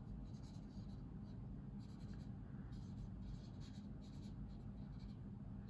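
Faint scratchy rubbing of a cotton swab worked in short repeated strokes over the painted plastic of a model aircraft's tail fin, lifting dried oil-paint weathering.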